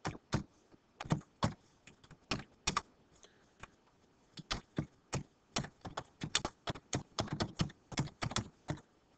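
Typing on a computer keyboard: a quick, irregular run of keystrokes with a brief lull about three seconds in.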